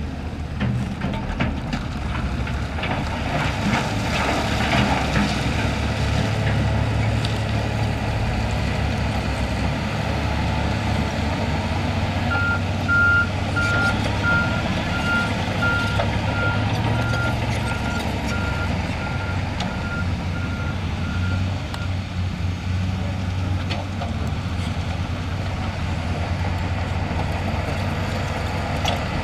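Heavy diesel construction machine running under load, with a reversing alarm beeping in an even series from about twelve to twenty-two seconds in. Clattering a few seconds in.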